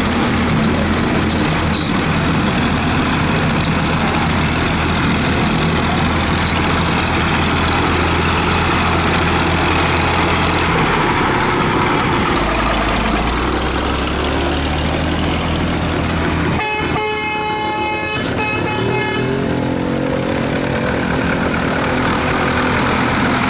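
Tractor engines running steadily, their pitch dropping about halfway through, with a horn sounding for about three seconds near the end.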